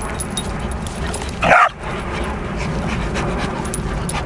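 Two young dogs, a Rhodesian Ridgeback and a Presa Canario, play-fighting, with one short, loud bark about a second and a half in.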